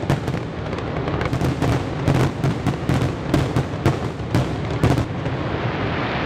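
Fireworks going off in a rapid barrage of bangs and crackles, several a second, thinning out about five seconds in.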